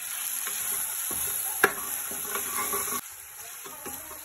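Onion-tomato masala and freshly added ground spices sizzling in hot oil in a kadhai while a steel ladle stirs them, the spices being roasted in the oil. A sharp clink of the ladle against the pan comes about a second and a half in, and the sizzle drops off sharply about three seconds in.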